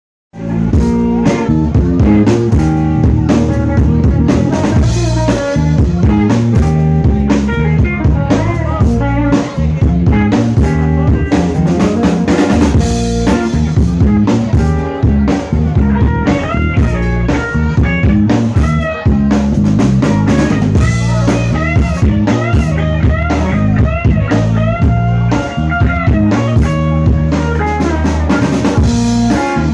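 Live blues band playing: drum kit, electric guitar and bass guitar, the guitar playing lead lines with bent notes over the drums.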